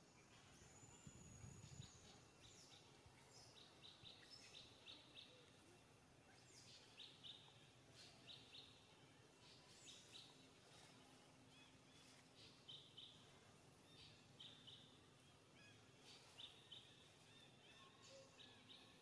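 Faint birdsong: short high chirps in quick runs of three to five notes, repeating every second or two. There is a brief low rumble near the start.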